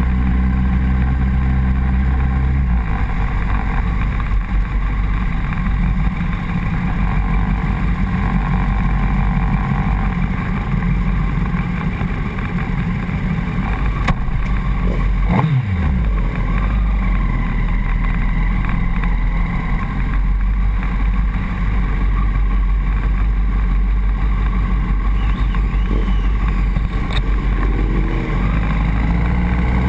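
Honda CBR1000RR's inline-four engine running at low revs, heard close from the fuel tank, with a steady low hum. About halfway through, a quick sweep in pitch cuts through it, and the revs begin to climb just at the end.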